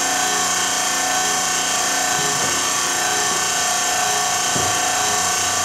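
A machine running steadily: an even hiss with several held steady tones that does not change.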